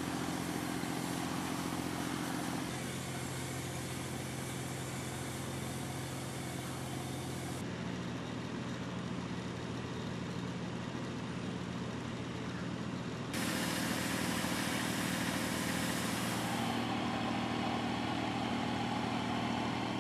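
Pressure washer's engine running steadily with the hiss of the high-pressure water spray. The tone and level change abruptly a few times, about three seconds in, near the middle and about two-thirds through.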